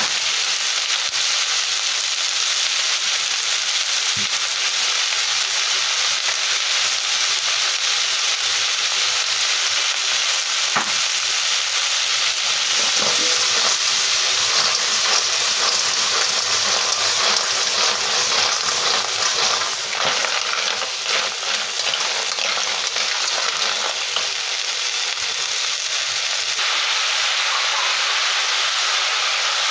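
Snails in their shells sizzling steadily as they stir-fry in a hot wok with lemongrass, with the shells clicking and clattering against each other and the pan as they are stirred about in the middle.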